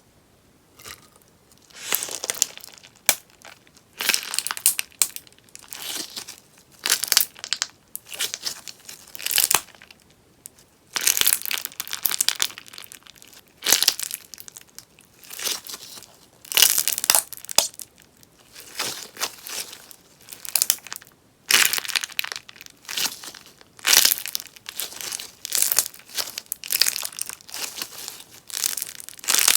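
Crackly beeswax sponge slime popping and crackling in repeated short bursts, about one a second.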